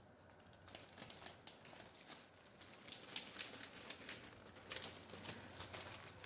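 Zip-top plastic bag crinkling and rustling in the hands as it is held up and closed with floured fish inside: irregular crisp crinkles that start about a second in and grow louder and busier about halfway through.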